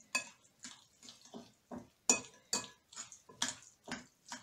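A metal spoon clinking and scraping against a ceramic bowl while stirring yogurt into grated celeriac, about two to three strokes a second. The loudest is a sharp clink about two seconds in.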